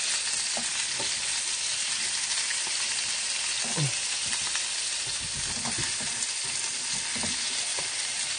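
Salmon steaks sizzling steadily in oil in a hot frying pan, with a few light knocks and scrapes of tongs against the pan as the pieces are turned.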